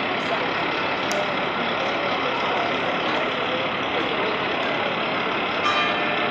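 Fire engine idling as a steady, even noise, with a brief pitched sound coming in near the end.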